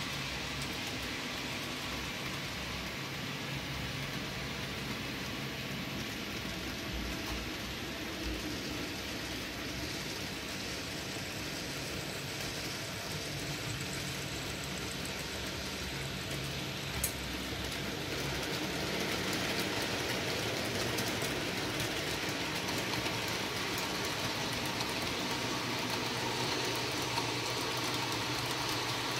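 N gauge model trains running round the layout, a steady motor hum and wheel rumble on the track. A single sharp click comes a little past the halfway point, and the running gets louder soon after.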